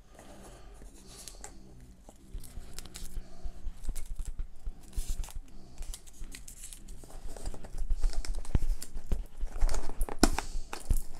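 A box cutter slicing the packing tape along the top of a cardboard box, with tape tearing and cardboard scraping and rustling. The sound is irregular and gets louder over the last few seconds, with a few sharp clicks.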